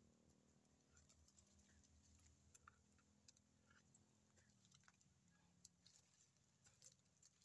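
Near silence with a few faint, scattered ticks and scrapes of teeth gnawing at a tree trunk's bark.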